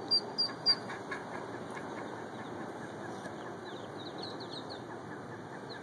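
Ducklings peeping in short, high chirps: a quick run of them right at the start and another cluster about four seconds in, over a steady background hiss.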